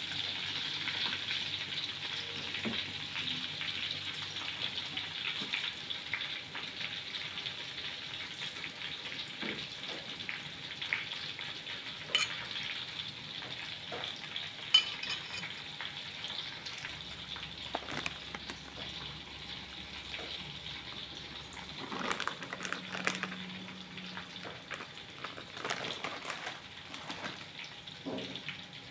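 Saucepan of meatball soup boiling on a gas burner, with steady bubbling and hiss and small pops. A few louder knocks and rustles come after about twenty seconds.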